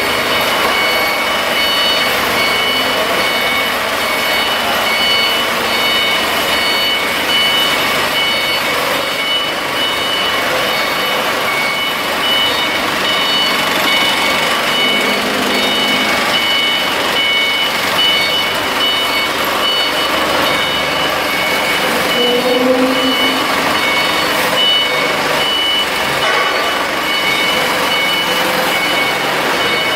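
900 kVA Cummins diesel generator set running steadily at loud, constant level, with high-pitched tones over the engine noise.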